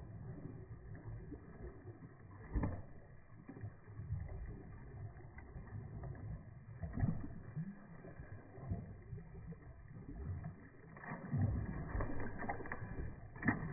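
Water sloshing and splashing around a pug paddling in a shallow pool, slowed down with the slow-motion picture so it sounds deep and muffled. There are a few louder splashes about two and a half and seven seconds in and again near the end.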